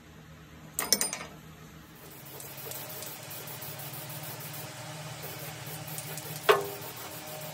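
Metal parts clatter, then a steady crackling sizzle of arc welding on the steel mower deck. A single sharp metal clank rings out near the end.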